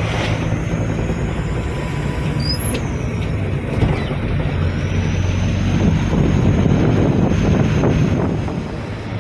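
Engine and road noise inside the cabin of a moving Tata SUV: a steady low drone that grows a little louder about six seconds in and eases off near the end.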